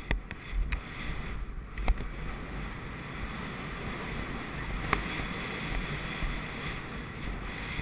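Wind rushing over an action camera's microphone mounted on a horse and rider moving at speed, a steady rushing noise with dull low thumps in the first couple of seconds and a few sharp clicks, the loudest about five seconds in.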